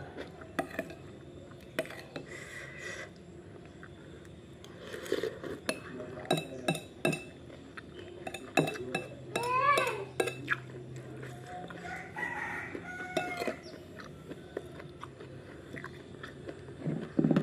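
A metal spoon clinks and scrapes against a ceramic bowl while someone eats soup. A rooster crows once about halfway through, and shorter calls follow soon after.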